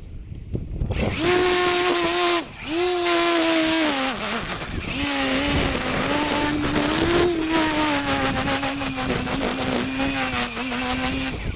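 Petrol whipper snipper (string trimmer) running at high throttle, starting about a second in. Its pitch wavers with the load and dips briefly twice, about two and a half and four and a half seconds in, as the throttle is eased off.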